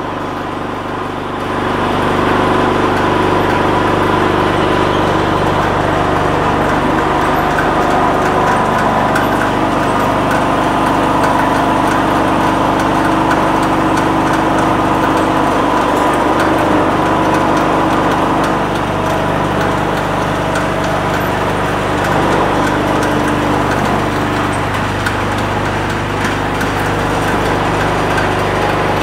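Charcoal briquette extruder and conveyor machinery running steadily, a continuous motor hum with several held tones. It grows louder about a second and a half in.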